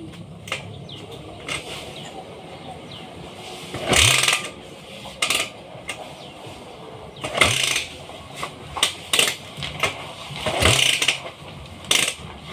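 Kubota engine converted to run on a carburettor, running low and uneven, with several short sharp bursts as the throttle is blipped; twice the pitch rises briefly as it revs.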